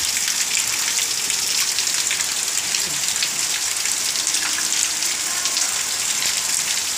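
Heavy rain falling steadily on a wet paved yard and puddles, a constant hiss of drops.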